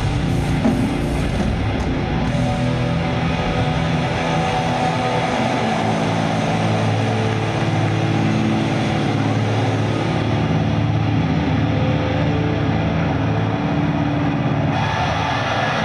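Metal band playing live: distorted electric guitars and bass ring out on long, held chords, with few drum hits.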